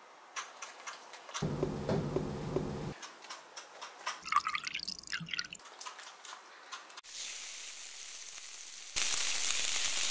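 Kitchen prep sounds in quick succession: a metal spoon clicking and scraping in a ceramic bowl as flour goes in and the wet batter is stirred. Then pancake batter sizzling in a non-stick frying pan, with a steady hiss that gets louder near the end.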